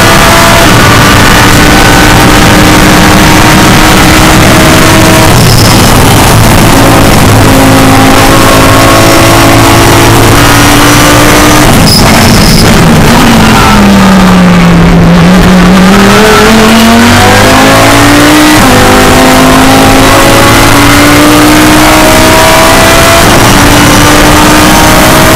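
Audi R8 LMS GT3 race car's V10 engine heard loud from inside the cockpit at full throttle, its pitch climbing and then dropping a step at each upshift. About halfway through, the revs fall away as the car slows for a corner, then climb again as it powers out and shifts up once more.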